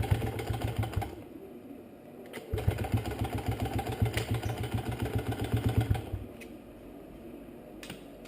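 Freshly rebuilt Honda CRF70's small single-cylinder four-stroke engine on its first start-up with the choke on, running roughly in two stretches: a short one at the start and a longer one from about two and a half to six seconds in. It drops to a much quieter sound about six seconds in.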